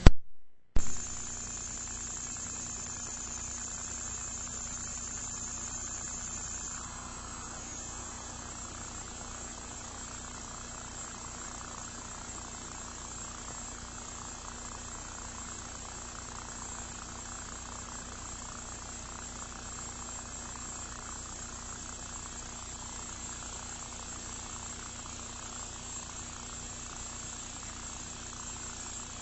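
Steady hiss and mains hum of a blank stretch of old videotape, with a thin high whine. Two sharp pops come within the first second, with a brief dropout between them.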